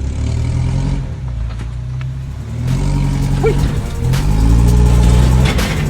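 Mitsubishi Pajero's engine revving, its pitch rising and falling, louder in the second half.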